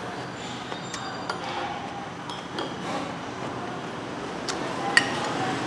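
A metal spoon and dishes clinking a few times over a steady background hum, with the sharpest, ringing clink near the end.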